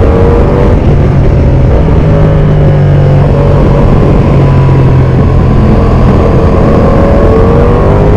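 Ducati Panigale V4 Pikes Peak's V4 engine running under way on a winding road, its revs gently rising and falling. The exhaust sound is echoing off the canyon walls.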